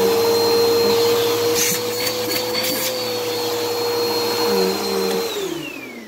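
Upright vacuum cleaner motor running at full speed with a steady high whine. About five seconds in it is switched off and spins down with a falling whine.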